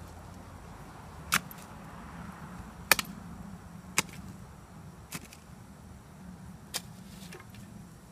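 Long-handled shovel blade jabbed down into dry garden dirt while digging a hole, five sharp strikes spaced about one to one and a half seconds apart.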